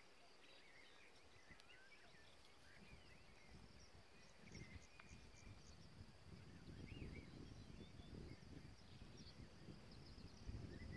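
Faint countryside ambience: scattered short bird chirps and calls over a steady high insect hum, with a low rumble rising from about four seconds in.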